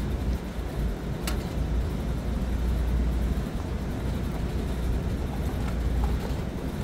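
A steady low rumble of outdoor background noise, with one sharp click about a second in.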